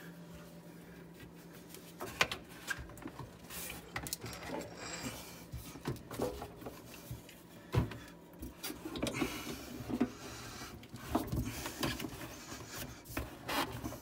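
Rubber dishwasher drain hose being handled and worked onto a garbage disposal's inlet: rubbing and scraping, with scattered clicks and knocks of the hose and its metal clamp against the disposal.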